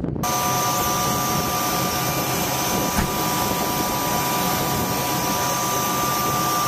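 Helicopter turbine engines running: a steady rushing noise with a high, steady whine that begins abruptly.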